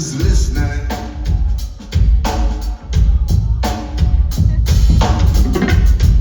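Live band playing a song, with the drum kit and a deep bass line to the fore.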